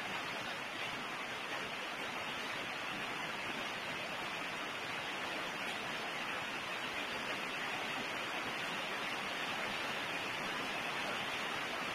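Steady, even background hiss with nothing else standing out.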